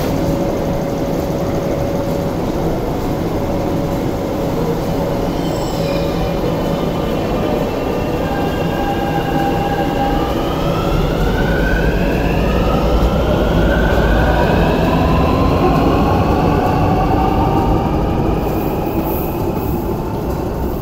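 MTR S-train with Alstom Optonix traction equipment accelerating away from the platform. A rumble is joined from about six seconds in by several whining tones from the traction drive that climb in pitch in steps, with some wheel noise, echoing off the station walls.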